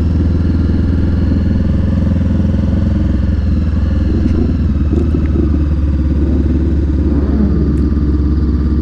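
Honda CBR500R parallel-twin engine running steadily at low revs while the motorcycle rolls slowly.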